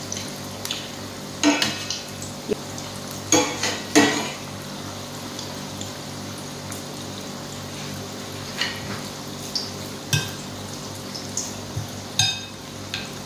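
Fish balls deep-frying in oil in a stainless steel pan, a steady sizzle, with a spatula knocking and scraping against the pan several times at irregular intervals as the balls are turned.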